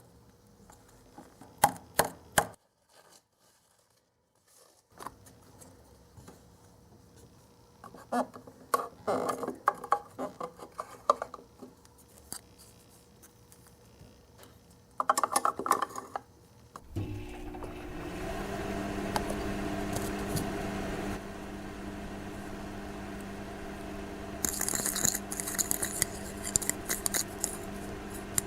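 Small plastic toy-kitchen tools and trays clicking and clattering in short bursts. Later a steady hum with a low tone starts and runs on, with light clicks over it near the end.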